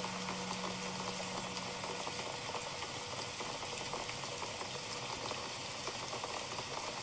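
Steady rain falling, with a patter of drops. A singing bowl's low ring fades away during the first couple of seconds.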